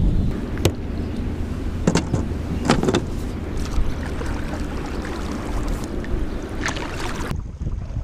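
Wind buffeting the microphone on a fishing kayak as a steady low rumble, with a few short knocks and splashes from the kayak paddle. Near the end the high hiss cuts off suddenly.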